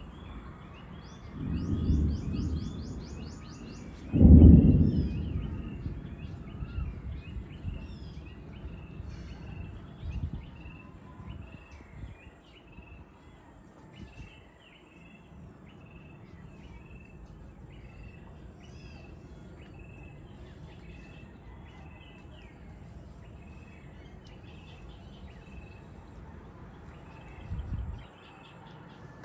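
Rumbles of thunder from an approaching storm. A first one comes about two seconds in, then a louder one starts sharply about four seconds in and fades over a couple of seconds, and a faint one comes near the end. Small birds chirp over and over underneath.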